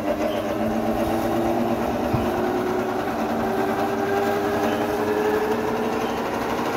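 Electric motor of about 2 kW running on 220 V mains and spinning a belt-driven generator, a steady machine whine with several tones that slowly rise in pitch as it speeds up.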